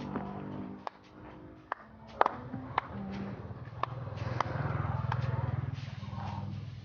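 A string of sharp clicks and knocks, then from about four seconds in a low engine hum that swells and eases.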